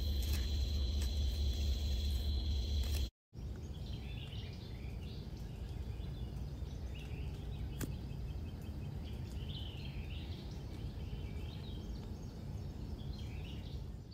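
Outdoor night ambience over a low steady rumble. For the first three seconds a steady high insect drone sounds over it; after a brief cut-out, short chirping calls come every couple of seconds.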